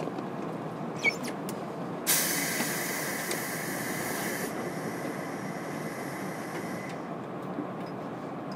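Inside a JR Kyushu 103 series 1500 electric train car: a steady low rumble, a sharp click about a second in, then a sudden loud hiss of compressed air about two seconds in that fades and runs on more quietly, stopping about seven seconds in.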